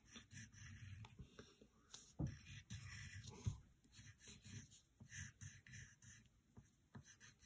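Faint scratching of a pencil drawing on paper, in many short, irregular strokes.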